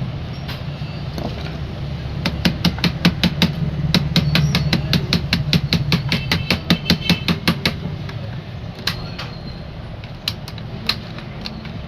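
A fast, even run of sharp light taps, about six a second for some five seconds, then a few single taps, over a steady low hum.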